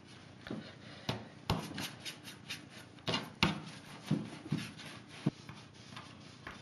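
Hands rolling dough on a wooden pastry board: soft rubbing with a few irregular light knocks on the wood. Near the end a plastic dough scraper cuts pieces off the log against the board.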